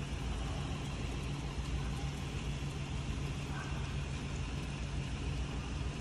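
Steady outdoor wash of rain and floodwater noise, with a low, steady mechanical hum underneath.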